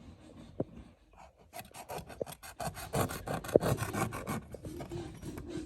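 Small knife sawing through tarpaulin sheet: a quick rasping run of strokes, about seven a second, starting about a second and a half in and stopping after about four seconds.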